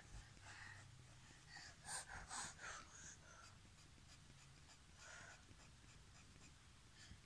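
Faint scratching of a coloured pencil drawing short shading strokes on paper, a quick run of strokes about two seconds in and another near five seconds.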